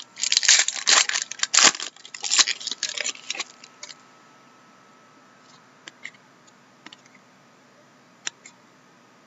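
Trading-card pack wrapper being crinkled and torn open for about three and a half seconds, followed by a few soft, scattered clicks of cards being handled.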